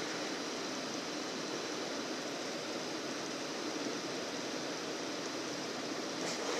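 River water flowing: a steady, even rush with no separate events.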